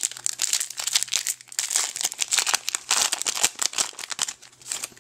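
Plastic foil booster-pack wrapper crinkling and crackling as a Yu-Gi-Oh! card pack is handled and opened, thinning out near the end.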